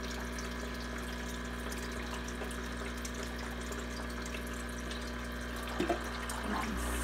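Steady trickle of water and a low motor hum from an aquarium's hang-on-back filter, with a brief faint tap about six seconds in.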